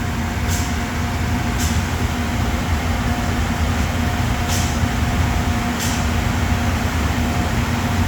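The CNC machine's air compressor running steadily as it builds up pressure, a low hum with two steady tones. Four short hisses come through it, about a second in, near two seconds, and around four and a half and six seconds in.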